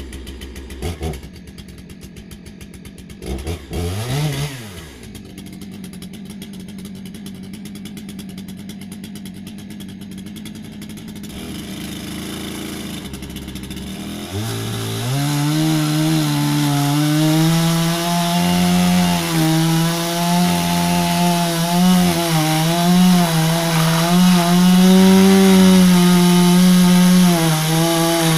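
Stihl MS 661 two-stroke chainsaw idling, with a quick blip of the throttle early on. About halfway through it is revved to full throttle and held there as it cuts down through a strapped bundle of split firewood, its pitch wavering under the load.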